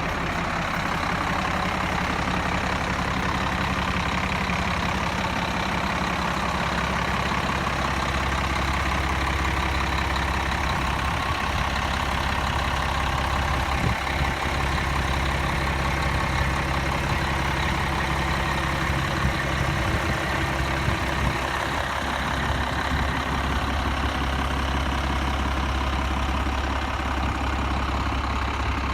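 Diesel engine of a 1999 Blue Bird LTC-40 motor coach idling steadily.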